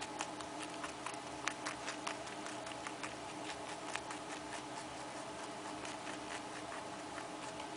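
A small fluffy pet chewing food, quick irregular crunchy clicks several a second, over a steady hum.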